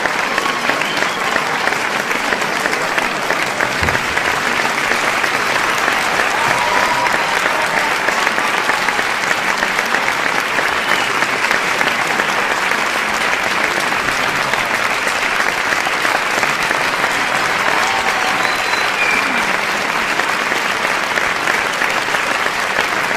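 Large audience applauding steadily, a dense wash of many hands clapping, with scattered faint cheers and whistles from the crowd.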